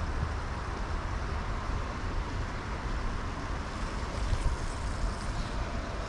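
Wind buffeting the microphone outdoors: a steady low rumble under an even hiss.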